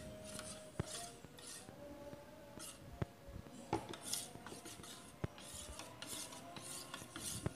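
Metal spoon stirring runny batter in a plastic bowl: runs of quick scraping strokes against the bowl, with a few light taps.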